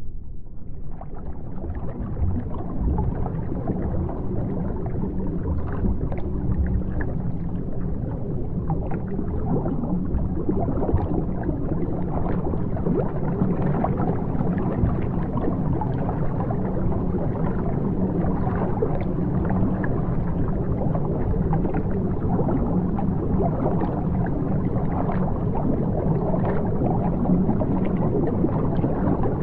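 Water bubbling and gurgling without a break, a dense deep mass of bubbles with many small pops, building up over the first couple of seconds and then holding steady.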